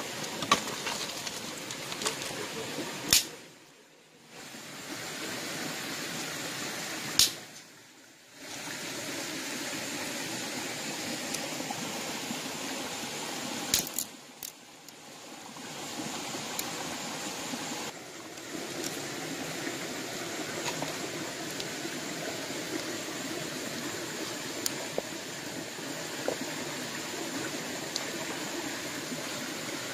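A shallow river running over stones, a steady rushing. A few sharp clicks cut through it, the louder ones followed by a second or two where the sound drops away.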